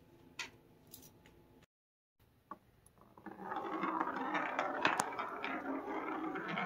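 Glass marble rolling across old hardwood floorboards: a steady rough rumble that starts about three seconds in, with one sharp click partway through. Before it, a few faint clicks.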